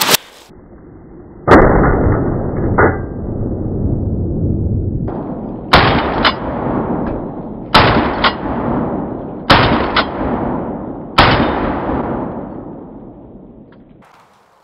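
Remington 11-87 12-gauge semi-automatic shotgun firing a magazine dump, the shots slowed down in slow motion: about five deep, drawn-out booms a couple of seconds apart, each fading in a long rolling tail, several with a second sharp crack just after. The last one dies away near the end.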